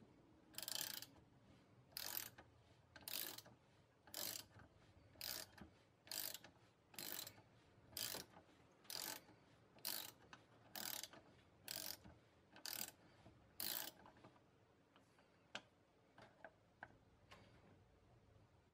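Socket ratchet clicking on each back-swing, about fourteen even strokes at roughly one a second, as it unscrews the Allen-head bolt holding a shotgun buttstock to the receiver through a long extension. After the ratchet stops, a few faint light clicks follow.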